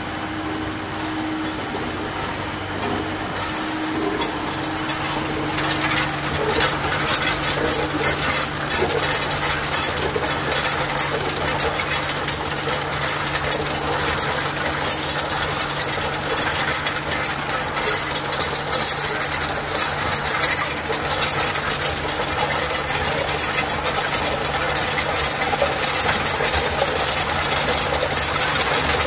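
Tube ice machine harvesting: a dense, continuous clatter of freshly released ice tubes dropping onto the ice pile in a stainless steel hopper. Under it runs a steady machine hum, and a lower hum joins about four seconds in.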